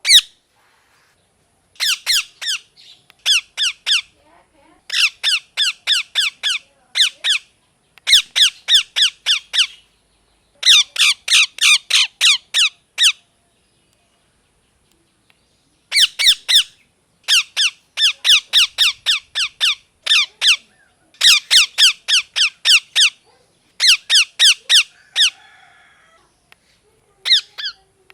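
Indian ringneck parakeet calling in loud bouts of short, sharp repeated squawks, about four or five a second. The bouts are broken by short pauses, with one longer silence of a few seconds midway.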